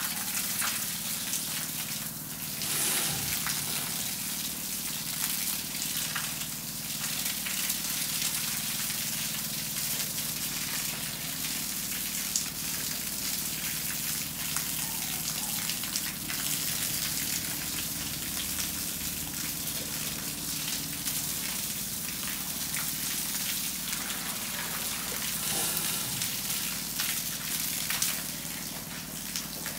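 Water from a hose gushing and splashing steadily onto a wet concrete floor, with a low steady hum underneath.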